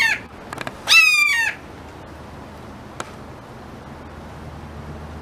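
An animal giving two loud, harsh calls, each about half a second long: one ends just after the start, the other comes about a second in. After them comes a low steady background, with one faint click near the middle.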